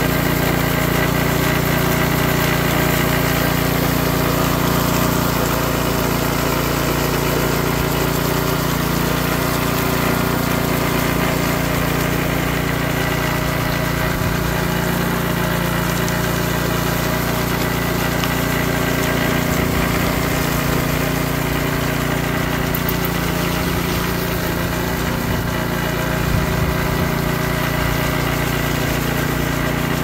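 Walk-behind power trowel's small petrol engine running at a steady speed while its rotating blades float and smooth the surface of freshly poured concrete.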